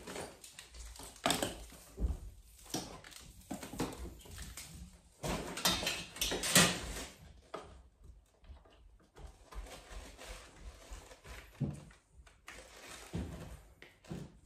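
Handling noises: rustling, clicks and knocks as an installation tester and its test leads are taken from a fabric tool bag and clipped onto a consumer unit. The rustling is loudest about six seconds in, with sparser clicks afterwards.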